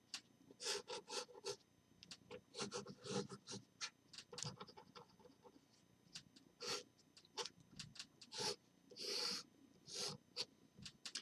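Pen drawing on paper: a quick run of short, scratchy strokes with brief pauses between them, one or two longer strokes near the end.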